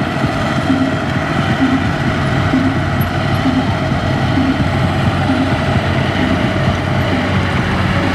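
Diesel engines of two-wheel power tillers and a Kubota combine harvester running steadily.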